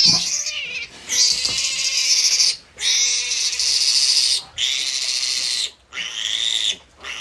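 Piglet squealing while held and restrained in the hand: a string of loud, high-pitched screams, each a second or so long with brief breaks between them.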